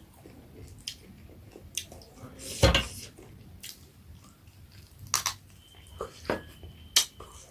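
Close-up eating sounds of a mukbang meal: soft chewing with several sharp clinks of dishes and cutlery. The loudest clink comes about two and a half seconds in.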